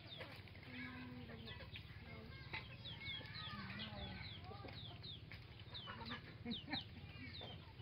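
Domestic chickens clucking, with many short, high, falling chirps throughout and a couple of low drawn-out calls about one and four seconds in.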